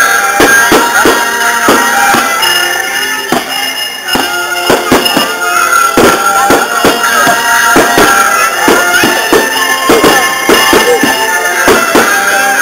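Music with long held notes, over a dense, irregular run of sharp bangs and crackles from aerial firework shells bursting during a finale barrage.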